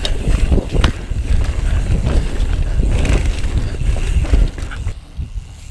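Mountain bike ridden over a dirt pump track: tyres rolling on dirt, with wind rumbling on the camera's microphone and a few sharp knocks from the bike over the bumps.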